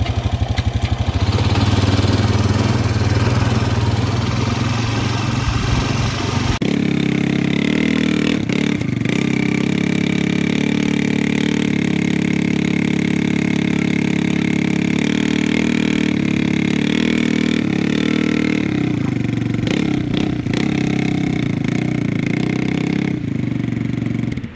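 Honda Foreman 500 ATV's single-cylinder four-stroke engine running just after a top-end rebuild, sounding crisp. About six and a half seconds in the sound changes abruptly to an ATV engine running steadily at a higher pitch as a four-wheeler is ridden onto a trailer.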